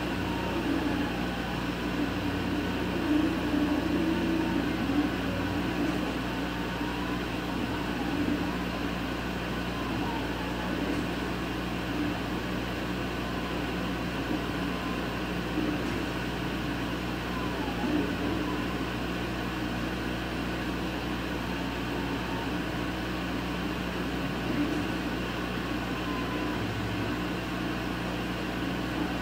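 Laser cutter running while it cuts cherry wood: a steady machine hum from its fans and air-assist pump. Faint whining tones from the gantry's motors glide up and down now and then as the head traces the cut.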